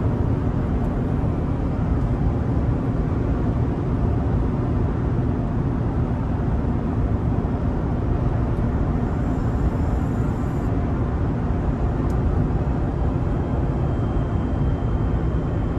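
Steady in-cab drone of a 2003 Toyota Tacoma pickup cruising at about 60 mph: engine, tyre and wind noise, even and without surges.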